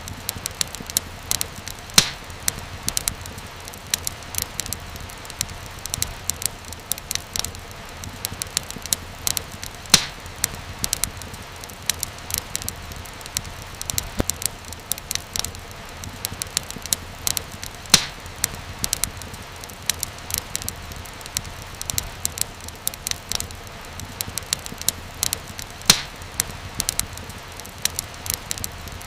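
Wood fire crackling, a steady hiss full of small snaps and ticks. A louder sharp pop comes about every eight seconds.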